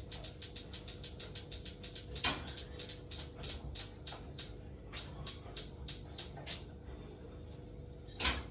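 Gas oven's spark igniter clicking rapidly, about five clicks a second, stopping about six and a half seconds in, then one louder click near the end: the oven being lit to preheat.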